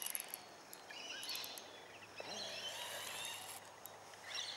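Faint creek-side bush ambience with birds chirping at intervals and a few faint high ticks.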